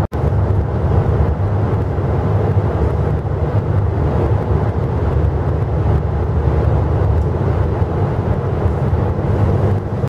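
Steady low road rumble of a minivan travelling at highway speed, heard from inside the cabin: tyre and engine noise.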